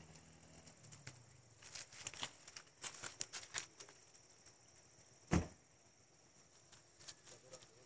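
Faint outdoor ambience with a steady high hiss. A run of light crackling clicks comes between about two and four seconds in, and one dull thump about five seconds in.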